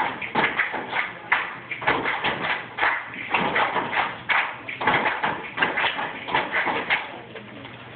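A group of children clapping their hands in rhythm, several sharp claps a second in an uneven pattern, stopping about seven seconds in.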